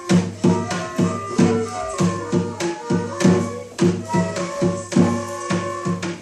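Korean traditional instrumental ensemble playing a folk tune: steady drum strokes about three a second under a held, pitched melody line.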